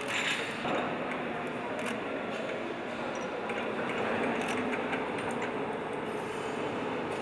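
Assembly-hall ambience: a steady hum and hiss of plant machinery with scattered light metallic clicks and clinks.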